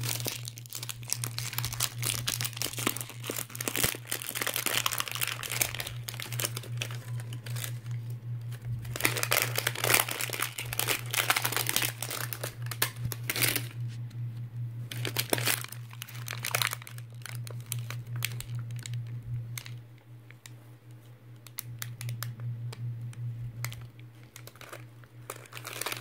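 Plastic toy packaging crinkling and rustling in several long bursts as it is handled and unwrapped, with some tearing. It thins out to scattered small crackles in the later part. A steady low hum runs underneath.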